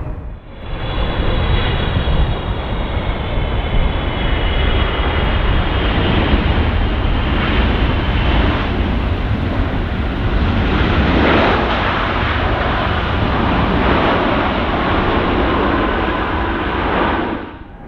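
Jet airliner engines running loudly: a dense rush over a deep rumble, with a thin high whine in the first few seconds that fades.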